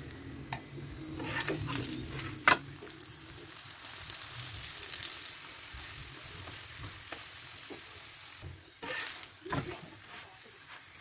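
Stuffed radish paratha frying in fat on a flat iron tawa, a steady sizzle that swells for a while in the middle. Metal spoon and tongs click sharply against the griddle a few times as the paratha is oiled and turned.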